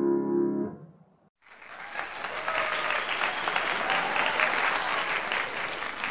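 The last chord of a grand piano rings briefly and stops under a second in; after a short silence, steady applause begins and carries on.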